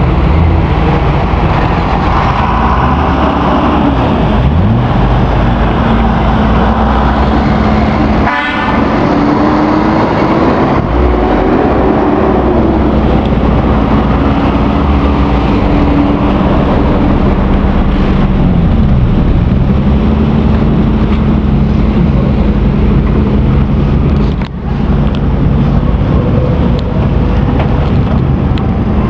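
Car engines revving up and down with stretches of steady revs in between, loud and close throughout.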